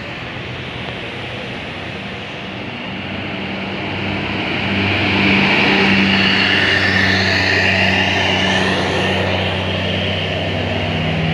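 Heavy diesel engine of a passing bus pulling uphill under load. It grows louder to a peak about five seconds in, then eases slightly.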